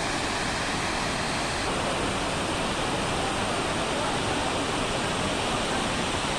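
Steady rush of flowing river water, an even hiss with no rhythm, with faint voices underneath.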